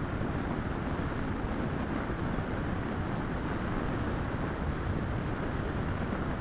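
Steady rushing wind noise from airflow over the microphone of a camera riding on a Bixler 3 foam RC plane in flight. The level stays even throughout.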